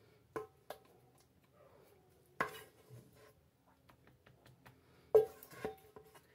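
A kitchen utensil knocking and scraping against a metal cooking pot as the last of the thick natilla custard is scraped out. There are about five sharp knocks, each ringing briefly, with the loudest about two and a half seconds in and about five seconds in, and faint scrapes between them.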